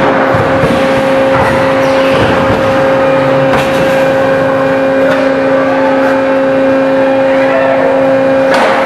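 Automated refrigerator-door production line machinery running with a steady hum over a busy mechanical din, and a few sharp clicks or knocks.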